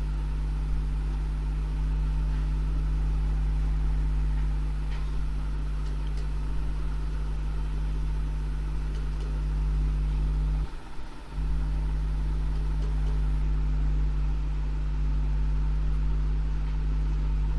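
Steady low electrical hum, dropping out briefly about eleven seconds in.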